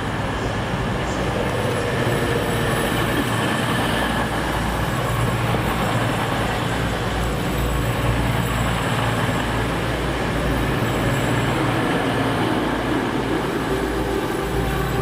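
Class 222 Meridian diesel-electric multiple unit running past along the platform: steady engine hum under the noise of wheels on the rails, with a higher steady tone coming in near the end.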